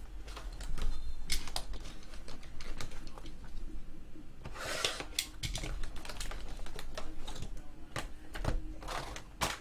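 A trading card hobby box and its packs being opened and handled: many small clicks and crinkles of wrapper and cardboard, with two longer rustles about five and nine seconds in.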